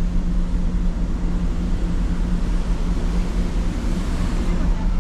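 Steady drone of a ferry under way heard from its open deck, with a constant low hum, mixed with wind on the microphone and the rush of the sea.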